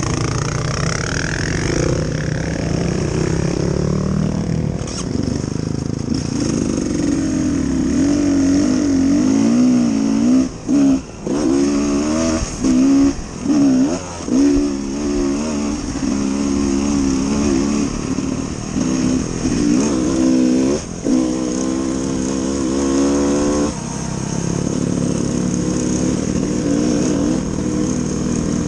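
Dirt bike engine running and revving, its pitch wavering up and down, with the sound dropping out sharply several times in the middle.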